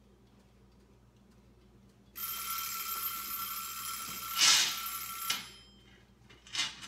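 Metal oven rack and springform cake pan scraping with a steady metallic ringing for about three seconds as the cake is pulled out of the oven, with a clunk partway through; a shorter knock follows near the end.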